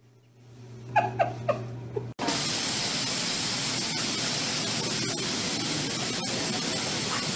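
Three short squeaks, each falling in pitch, about a second in, then a sudden cut to a loud, steady hiss.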